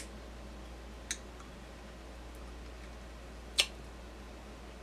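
Three short, sharp mouth clicks over a low steady hum, the loudest about three and a half seconds in: lip smacks and bites while eating a chocolate-coated bar on a stick.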